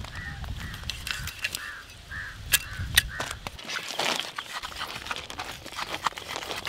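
A heavy cleaver cutting through a large yellowfin tuna, with irregular crunching, scraping and knocks as the blade works through the scaly skin and flesh.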